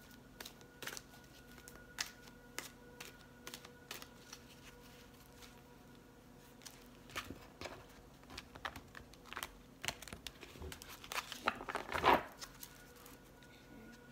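Tarot cards being shuffled and handled: scattered light clicks and flicks of card stock, thickening into a louder flurry about twelve seconds in.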